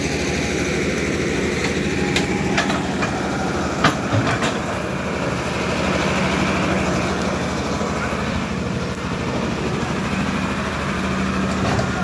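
Diesel engine of a hydraulic excavator running steadily while it digs soil, with a few short sharp knocks about two to four seconds in.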